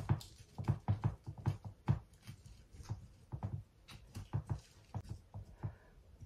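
A thin wooden stick jabbed again and again into gritty potting mix in a glass pot, making an irregular run of soft thuds and scrapes, a few a second.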